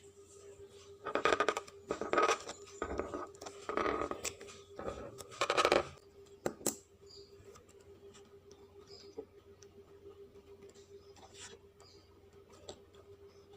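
Paper and stationery being handled for journal making: several short rustling, scraping strokes in the first six seconds, a sharp click, then quieter small taps, over a faint steady hum.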